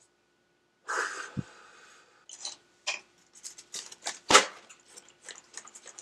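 A breathy exhale about a second in, then a run of short, irregular scratchy rasps and taps from hands moving close to the microphone, with one louder knock near the middle.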